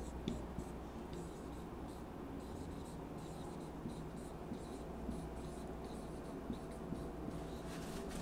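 Whiteboard marker writing on a whiteboard: a run of short, irregular strokes scratching across the board.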